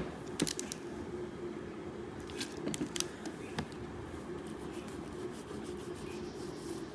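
Faint rubbing with a few light clicks and scrapes as the rubber button pad of a remote control's cover is cleaned with a petrol-dampened cotton cloth, over a low steady hum.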